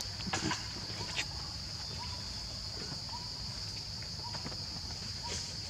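Steady high-pitched drone of an insect chorus, with a faint short chirp repeating about once a second and a few soft clicks in the first second or so.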